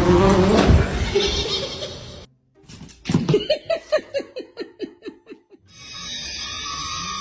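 A person laughing: a quick run of about a dozen 'ha' sounds falling in pitch, coming after a short silence. Before the gap, a loud, busy sound fills the first two seconds.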